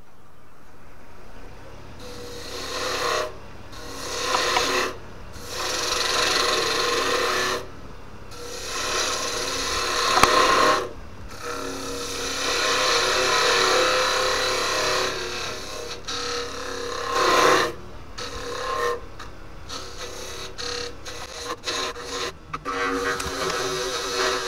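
A lathe turning tool cutting into a spinning green Japanese ornamental cherry bowl: scraping, rasping cuts in a series of passes a second or two long with short breaks between them, over the steady hum of the lathe. The footage is sped up six times.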